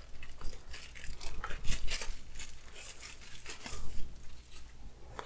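Packaging being unwrapped by hand, a run of irregular crinkling and tearing rustles.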